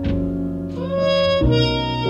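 Instrumental background music: sustained chords over a bass line, the bass note changing about every second and a half.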